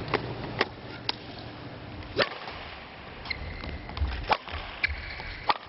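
Table tennis ball clicking sharply off paddle and table, about seven hard knocks at uneven spacing, some half a second apart, others a second or two apart. Two short high squeaks come after the middle.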